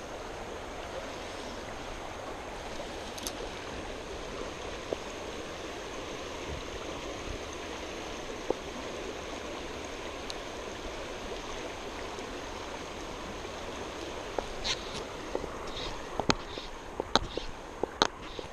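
River water flowing over a shallow, rocky riffle: a steady wash of running water. Near the end a few sharp knocks and rubs, from a sleeve brushing against the camera.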